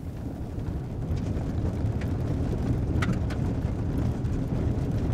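Toyota RAV4 SUV driving on an unpaved dirt road: steady low rumble of tyres and engine, with a few sharp clicks of gravel.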